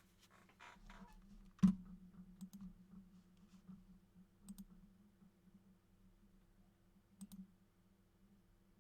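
A few scattered sharp clicks, the loudest about two seconds in, over a low steady hum.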